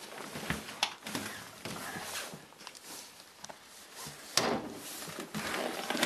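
Scattered knocks, clicks and clothing rustle from a person handling a cooking pot and moving out through a balcony door, with a louder stretch of rustling starting about four and a half seconds in.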